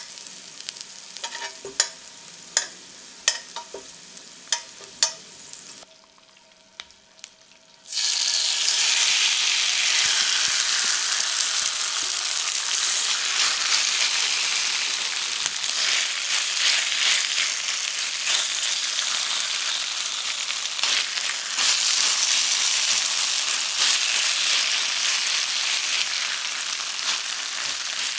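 Halved baby potatoes frying quietly in oil while metal tongs turn them, clicking sharply against the pan about every half second to second. After a short lull, a loud, dense sizzle starts at once as marinated beef strips fry in the hot oil and are stirred with a spatula.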